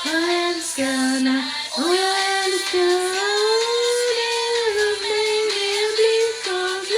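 Music: a song whose lead line is a woman's voice holding long, gliding notes over the accompaniment.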